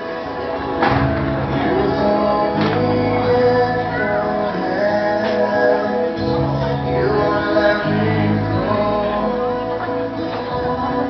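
A song sung by male and female voices over instrumental backing with a shifting bass line.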